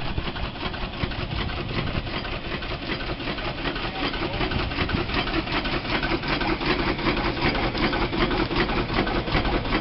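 McLaren steam traction engine running while stopped, a steady rapid mechanical beat.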